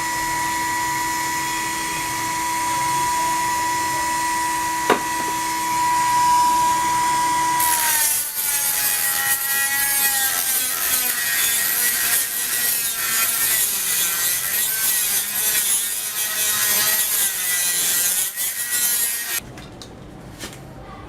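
A power tool running with a steady high whine, then loaded about eight seconds in: its pitch sags and wavers under a harsh cutting or grinding noise, which stops shortly before the end.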